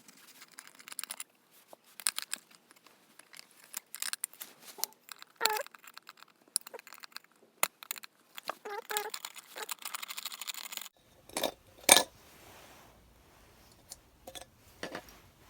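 Small plastic and metal parts of an electric kettle's base connector and thermostat contact switch being handled and pried apart: irregular clicks, taps and scrapes, with one loud sharp click about twelve seconds in.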